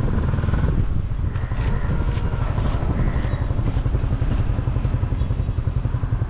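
Motorcycle engine running at low speed, heard from the pillion seat. In the second half its beat becomes an even, rapid pulsing.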